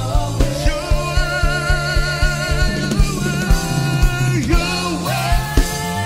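Live gospel worship music: several singers holding long, wavering sung lines over a band, with a drum kit keeping a steady beat.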